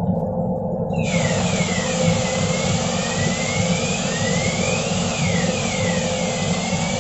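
A railway coach's smoke detection and alarm system sounding its alarm: about a second in, a tone starts sweeping slowly down and up, about one sweep every couple of seconds, over a hiss. Under it runs a steady rumble with a faint hum.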